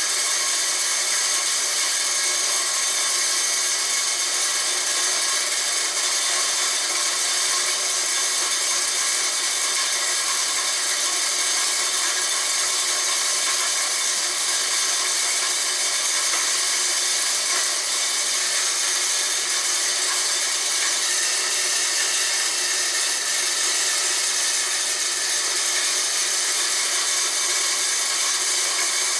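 Homemade corn grinder built from a water pump, running steadily and grinding corn, a constant high whine with a gritty hiss over it.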